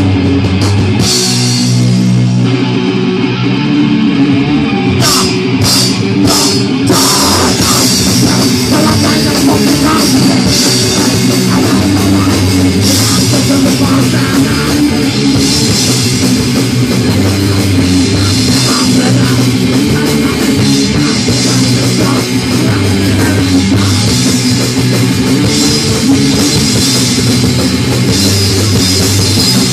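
Punk band playing live and loud: electric bass on an Explorer-shaped instrument, guitar and a Ludwig drum kit. The bass drops out for a couple of seconds near the start, a few hard drum and cymbal hits come in, and then the full band plays on steadily.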